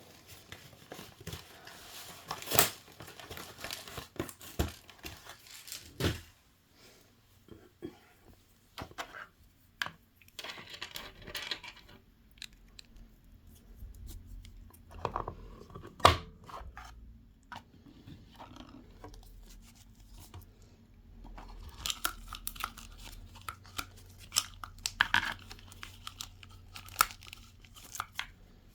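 Doll box packaging being handled and pulled apart to get the stand out: intermittent rustling, crinkling and tearing with sharp clicks and snaps, the loudest snap about sixteen seconds in.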